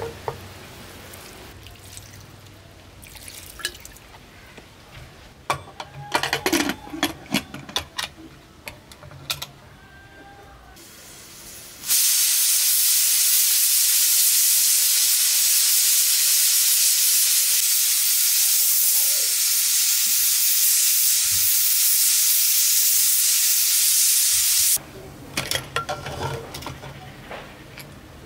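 Pressure cooker venting steam: a loud, steady hiss that starts suddenly about twelve seconds in and cuts off abruptly about thirteen seconds later. Before it, quiet wet squelching and clicks as a hand mixes spiced raw beef in the aluminium cooker; after it, scattered clicks and knocks as the cooker lid is handled.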